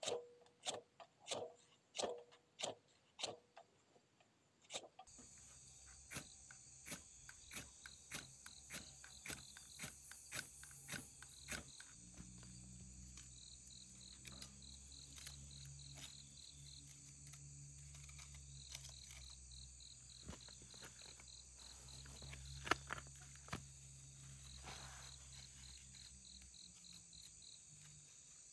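A run of sharp knocks about every two-thirds of a second in the first few seconds. Then insects chirping in repeated short pulsed trains over a steady high buzz and a low hum, with scattered clicks.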